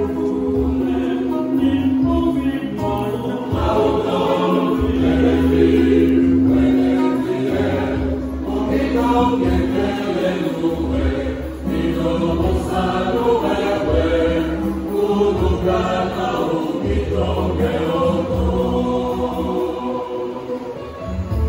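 Choir singing a hymn, with a long held low note and a low accompaniment beneath the voices.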